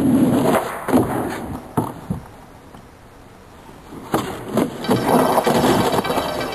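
Skateboard wheels rolling on asphalt, with several sharp clacks and knocks of the board striking the plywood ramp and the pavement; the loudest knocks come about a second in and again around four seconds in, as the skater bails and falls.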